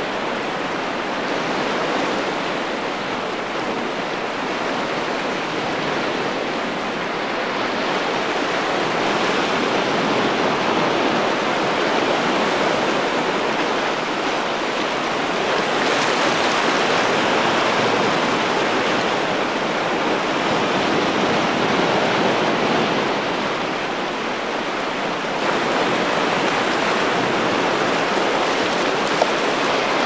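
Sea surf washing and foaming over shoreline rocks: a steady rush of churning water that swells and eases slowly, a little louder from about 25 seconds in.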